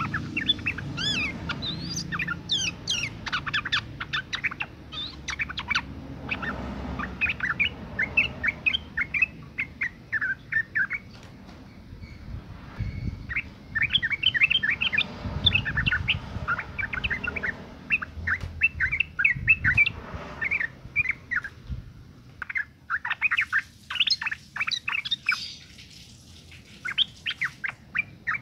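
Female yellow-vented bulbul (trucukan) giving rapid runs of chirping calls in phrases, with brief pauses about 12 and 22 seconds in.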